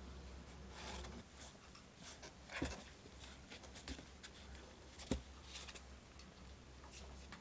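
Faint rustling and scratching as a cat is handled in a cardboard box, brushed and then wiped with a pet wet tissue, with two short knocks, about two and a half seconds in and again about five seconds in.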